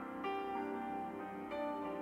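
Calm instrumental background music, with new notes sounding twice, about a second and a quarter apart.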